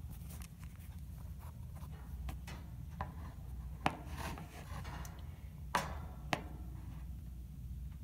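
A handful of sharp clicks and taps, the loudest about four and six seconds in, over a steady low hum.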